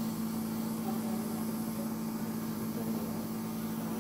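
Oxygen infusion facial machine running, a steady low hum with an even hiss over it.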